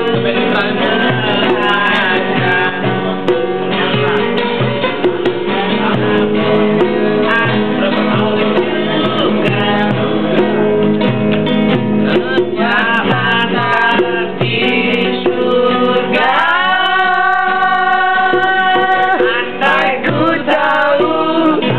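Acoustic guitar played with singing. About three-quarters of the way in, a voice glides up and holds one long note.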